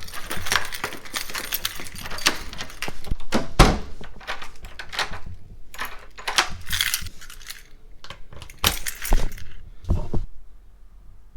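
A delivered parcel being handled and opened: irregular rustling of packaging and clatter, with clinks of small metal parts.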